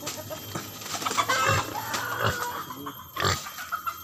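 Chickens clucking, with a few knocks about one and a half, two and a quarter and three and a quarter seconds in.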